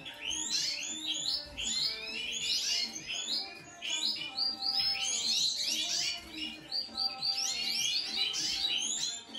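Many small birds chirping and twittering together: rapid, high, overlapping calls.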